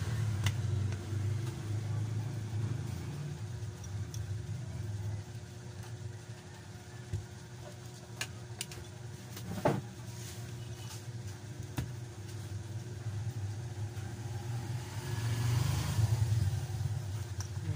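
Low, steady engine rumble of motor traffic running throughout, swelling again near the end. Over it come a few sharp plastic clicks, the clearest about ten seconds in, as the phone's back cover is prised off.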